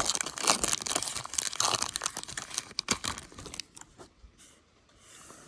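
A sealed trading card pack's wrapper being torn open and crinkled by hand, a dense crackling for about three and a half seconds that then stops.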